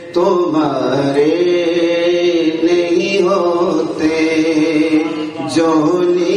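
A man singing an Urdu naat (a devotional poem in praise of the Prophet) into a microphone. He draws a single syllable out into long, wavering held notes between lines of the verse, over a steady drone.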